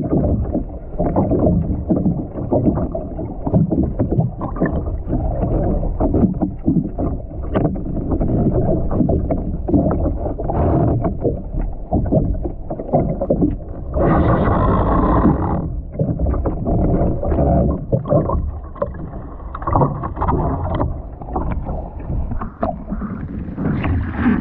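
Muffled underwater water noise around a deck-mounted action camera under a capsized sea kayak, a dense, dull rushing with no clear high end. It swells into a louder, brighter rush of about a second and a half a little past halfway. The noise brightens again at the very end as the kayak rolls upright and the camera comes out of the water.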